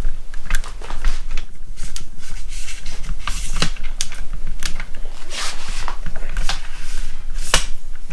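Handling noise from a camera tripod being adjusted close to the microphone: irregular sharp clicks and knocks with some rustling, over a low steady hum.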